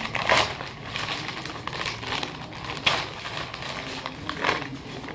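Plastic courier packet being torn and crinkled by hand, with a paper sheet rustling as it is pulled out. The rustling is irregular, with three louder crackles: just after the start, near three seconds in and about four and a half seconds in.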